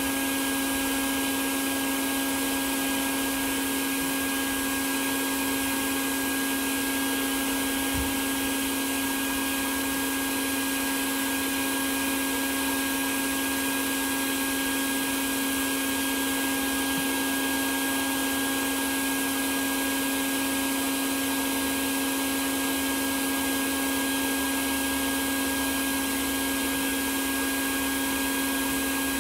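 Honeybee colony buzzing: a steady, unbroken hum of many bees flying around their exposed comb as it is being removed.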